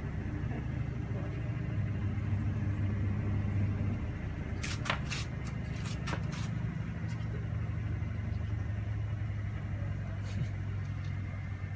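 Vehicle engine idling with a steady low hum, with a few sharp clicks about halfway through and again near the end.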